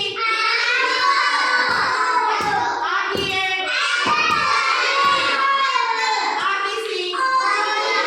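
A group of young children singing loudly together, with rhythmic claps or thumps for a few seconds in the first half.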